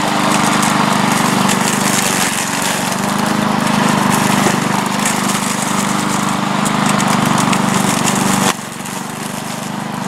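Walk-behind rotary lawn mower's small gasoline engine running steadily, at full speed, after being brought back from a no-start. Its level drops a little near the end.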